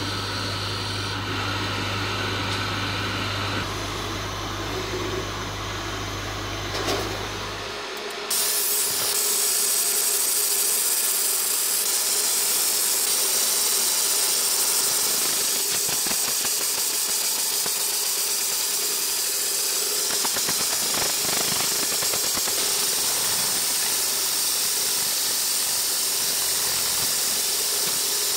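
Fiber laser marking machine at work: a low hum with fan noise. About eight seconds in, a sudden steady hiss sets in as the beam etches symbols into a dark plate.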